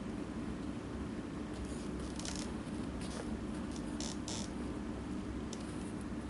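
Shoe knife slicing a narrow bevel off the edge of a leather welt strip: several short, dry scraping cuts over a steady low hum.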